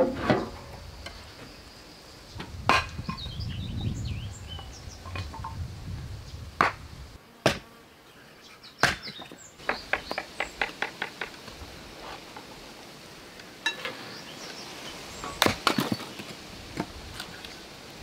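Sharp, irregular knocks of blades on wood: a knife cutting melon against a wooden board, then a hatchet chopping kindling, with a quick run of light taps about ten seconds in.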